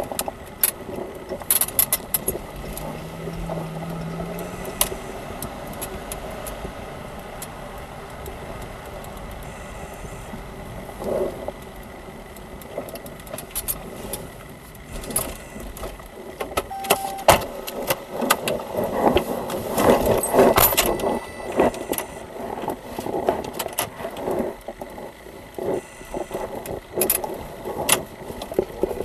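Scattered clicks, knocks and rustling from an officer handling things inside a police cruiser, over the steady hum of the running car.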